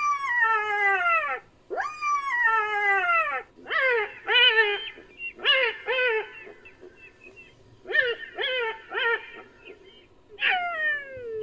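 Black-backed jackal calling: two long wails that fall in pitch, then several bursts of short, quick yelps, and another falling wail near the end.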